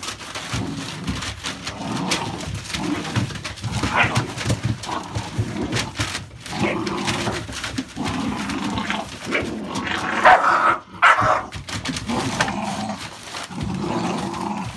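American Staffordshire Bully puppies play-fighting, growling with yaps and whimpers, louder cries about four seconds in and again near ten seconds, over the crinkle of newspaper under their paws.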